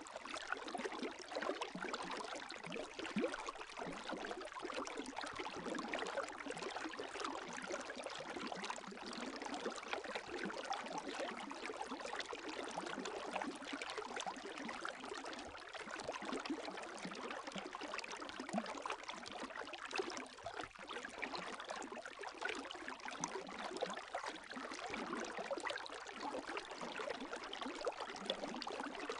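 Gentle lake waves lapping: a steady, even wash of many small splashes with hardly any deep sound.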